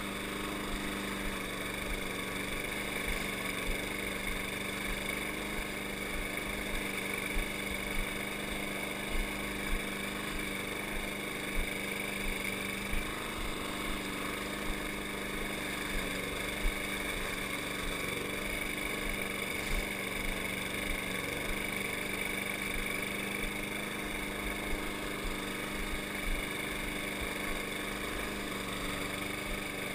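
Walk-behind rotary lawn mower's small gasoline engine running steadily at constant speed while cutting grass, a continuous even drone with a few faint ticks.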